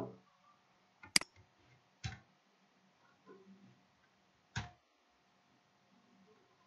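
A few sharp, separate clicks from working a computer's mouse and keyboard while editing code. The first, about a second in, is the loudest, and two softer ones follow about one second and three and a half seconds later, over a quiet room.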